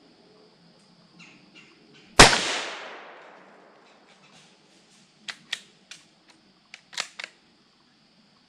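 A single shot from a Savage 93R17 .17 HMR bolt-action rifle, a sharp crack with its echo fading through the woods over about a second and a half. About three seconds later comes a quick series of metallic clicks as the bolt is worked.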